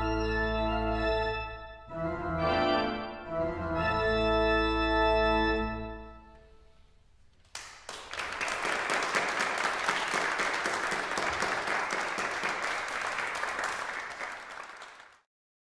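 Pipe organ sounding its closing full chords over a deep pedal bass, released about six seconds in and dying away in the room's echo. Then audience applause, cut off abruptly near the end.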